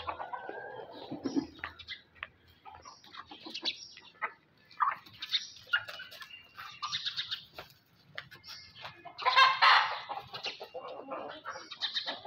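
Chickens clucking and squawking in short, repeated calls, with a longer, louder burst of squawking about nine to ten seconds in.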